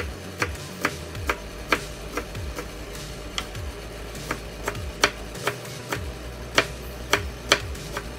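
Kitchen knife slicing raw breadfruit into small pieces on a wooden cutting board: sharp knocks of the blade meeting the board, about two a second at an uneven pace.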